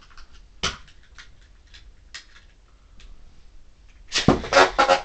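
Light scattered clicks and a single sharp knock about a second in, then near the end a loud burst of rattling clatter as a Beyblade spinning top hits and skitters in a plastic stadium.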